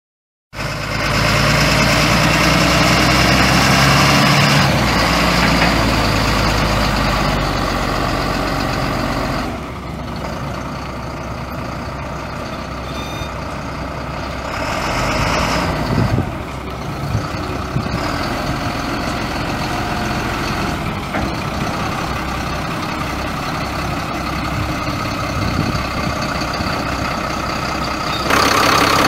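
Caterpillar 3116 six-cylinder turbo diesel in a 1990 GMC TopKick, idling steadily. It is louder for the first nine seconds or so, then a little quieter and less even.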